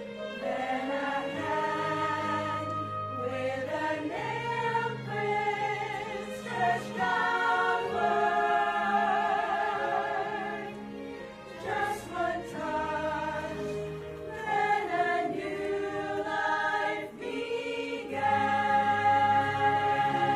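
Mixed church choir of men and women singing in parts, with low notes held underneath.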